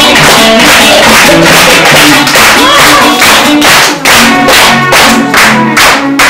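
Loud, upbeat music with a steady percussive beat and a bouncing bass line.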